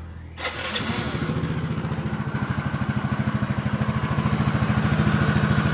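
Yamaha Mio Soul i 115 scooter engine starting about half a second in and then idling with an even pulse. There is no knocking from the CVT: the noise had come from a loose drive belt.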